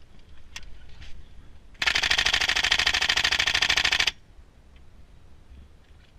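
Airsoft rifle firing one full-auto burst of a little over two seconds, starting about two seconds in: a rapid, even rattle of shots.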